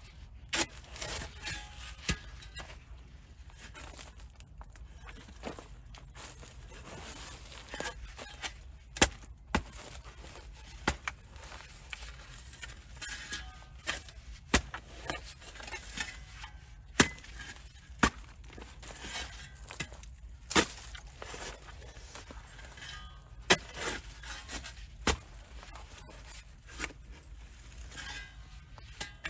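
Digging in garden soil by hand: a digging tool scraping and chopping into the dirt, with many irregular sharp clinks and knocks.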